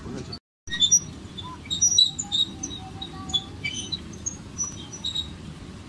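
Miniature ride-on train running along its track: a steady low rumble, with many short, high-pitched squeaks and chirps scattered irregularly over it, a few of them sharp and loud.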